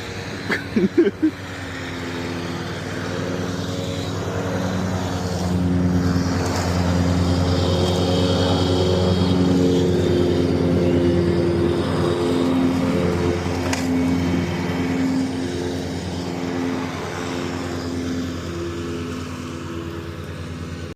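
An engine drones steadily, growing louder over the first several seconds, holding, then slowly fading. A few sharp knocks come about a second in.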